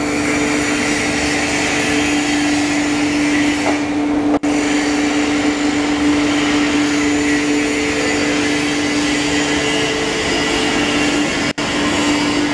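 Foam-cutting machine running steadily: a motor hum with one strong steady tone over a hiss. It cuts out briefly twice.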